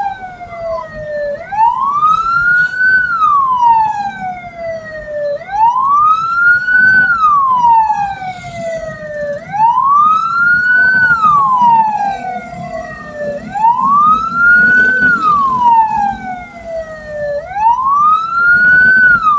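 Electronic vehicle siren wailing in slow, loud cycles, each rising for about a second and a half and falling for about two and a half, over steady engine and road rumble. It is clearing the way for a hearse.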